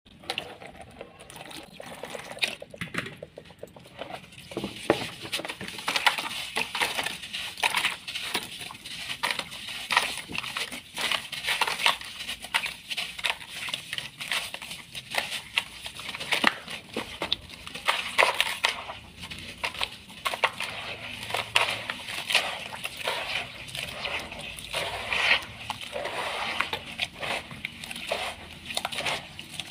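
A block of sand and cement being soaked and crumbled by hand in water in a plastic tub: water poured onto it at first, then irregular wet crackling, squishing and sloshing as the hands break it apart and knead the grit into slurry.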